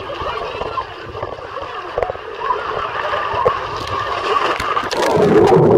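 Water rushing under a rider sliding down a water slide, getting louder near the end as the ride reaches the pool with a splash.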